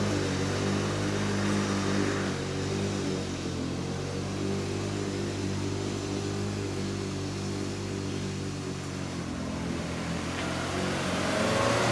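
Lawn-Boy 10520's two-stroke engine running steadily under load, mowing thick, damp grass, growing a little fainter as the mower moves away. A car approaches on the road near the end.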